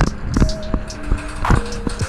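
Music: held notes stepping between pitches, with sharp percussive hits.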